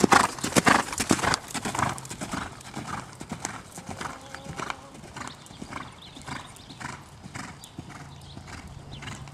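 Horse's hoofbeats on sand arena footing as it is ridden at a canter, a steady run of soft strikes that are loudest in the first second or so as it passes close, then fade as it moves away.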